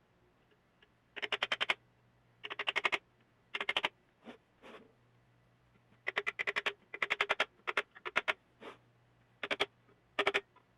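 Ratchet wrench clicking in about ten short bursts of rapid clicks with pauses between, as bolts are worked loose or run in during disassembly of a compressor motor. A faint steady hum sits underneath.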